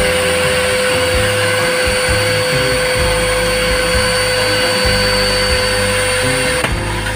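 Akira canister vacuum cleaner motor running with a steady high whine while its nozzle fails to pick up sawdust. It runs but does not suck, a fault the owner puts down to a clogged filter and dust container.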